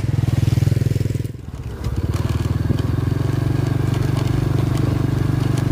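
Small motorbike engine running steadily under way, with a brief easing of the engine about a second and a half in before it picks up again.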